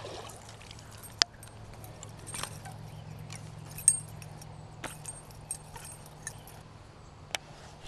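Scattered sharp clicks and light metallic jingling from a baitcasting rod and reel being worked while a small bass is fought at the bank, over a faint steady low hum.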